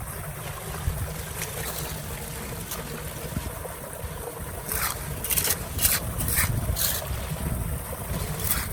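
Flowing water with wind rumbling on the microphone, and a cluster of short sharp sounds about five to seven seconds in.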